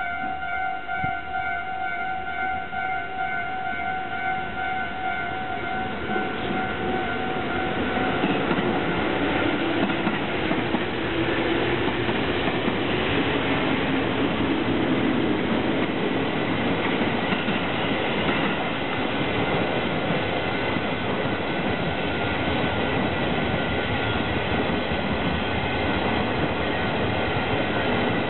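EF510-500 electric locomotive and the 24-series blue sleeping cars of the Hokutosei rolling past, wheels clicking over the rail joints. The sound grows louder about eight seconds in and stays loud as the coaches go by. For the first several seconds a level-crossing warning bell rings steadily, then fades under the train noise.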